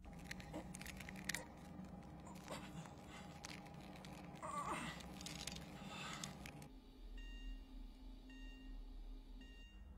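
Faint scuffing and clicking with a short wavering squeak about halfway through, then a faint electronic tone that repeats in short pulses.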